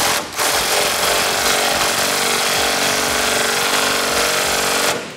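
Cordless impact wrench with a 16 mm socket hammering steadily for about five seconds as it runs a sway bar nut tight on a truck's front suspension, then cutting off near the end.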